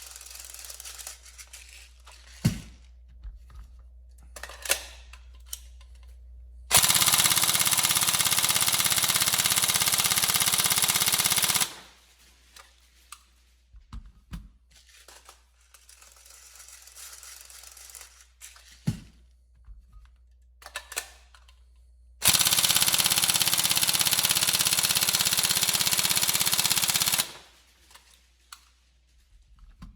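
Tokyo Marui 416 Delta NGRS electric airsoft rifle firing two long full-auto bursts of about five seconds each, with small clicks and knocks of handling between them. The gearbox runs on a 7.4 V LiPo and has a rebuilt Prometheus piston, under an endurance test after earlier piston failures.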